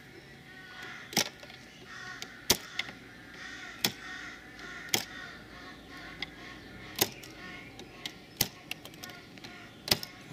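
Seven sharp metallic clicks, one every second or so, as a large flat-blade screwdriver knocks the push-on link connectors off the 12 V battery terminals of a UPS battery module, each connector snapping free in turn.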